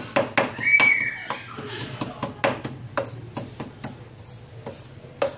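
Cleaver chopping red chillies on a round wooden chopping board: a steady run of knocks, about three a second. A brief high-pitched tone sounds about a second in.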